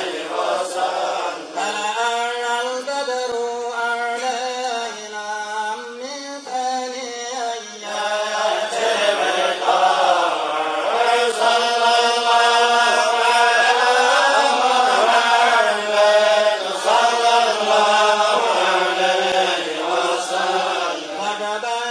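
A large group of men chanting together in unison in Arabic, a devotional chant of blessings on the Prophet (salawat) sung in long, drawn-out melodic lines.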